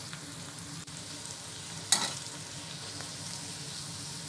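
Onion, tomato and egg masala sizzling steadily in oil in a steel frying pan, being fried until the oil separates. One sharp knock of the spatula against the pan a little under two seconds in.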